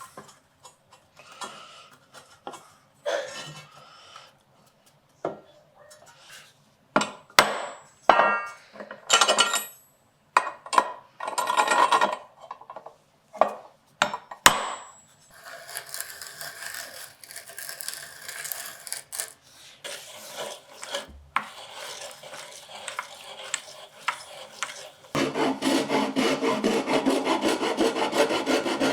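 Hand tools being handled and worked on wood: scattered knocks and a few short metallic clinks, then continuous scraping that turns louder, with quick repeated strokes, near the end.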